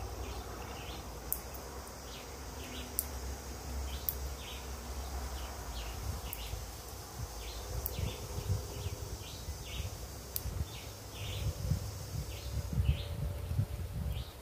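Short high chirps repeating one to two times a second, with a few sharp clicks. Under them is a low, gusting rumble of wind on the microphone that grows stronger in the second half.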